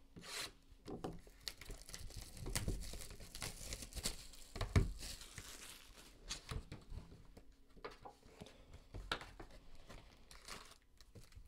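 Plastic wrapping crinkling and tearing as a Donruss Optic basketball hobby box is unwrapped and its cardboard lid opened, with scattered small taps and one sharp knock about halfway through.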